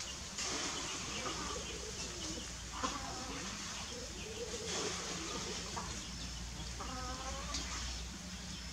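Outdoor ambience with a few short, pitched calls of domestic fowl clucking in the background, the clearest near the end.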